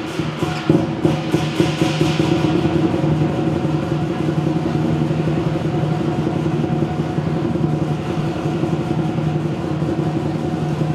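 Lion dance percussion band of drum, cymbals and gong playing fast, with quick repeated strikes for the first couple of seconds. It then builds into a sustained, dense ringing roll that holds steady to the end.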